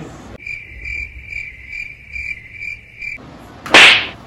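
Cricket-chirping sound effect, the 'awkward silence' kind: about seven evenly spaced high chirps over roughly three seconds, with the room sound dropped out beneath it. Near the end comes one loud slap, a hand hitting the helmet.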